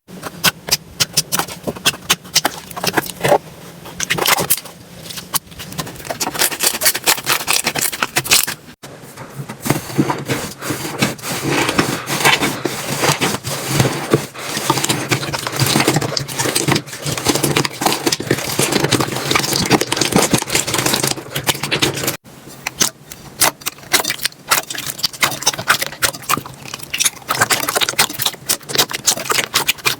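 Slime being squeezed, poked and stretched by hand, giving a dense run of small crackling clicks and pops. The texture changes abruptly about 9 and 22 seconds in.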